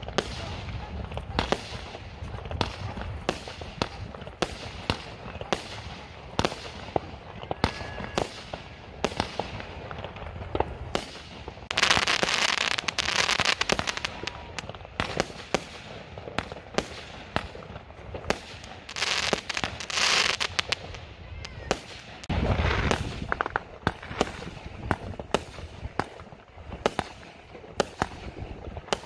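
Aerial fireworks going off: a steady run of sharp bangs and pops, with three longer spells of dense crackling in the second half, one with a heavy low thump.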